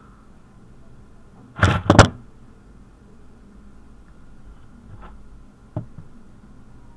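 A loud double thump about a second and a half in, then two faint clicks near the end.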